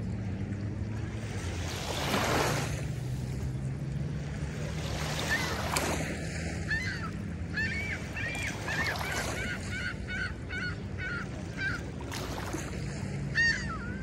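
Gulls calling: a quick run of short notes that rise and fall, about three a second, then one louder call near the end. Small waves lap on the sand, and there is a low steady hum underneath.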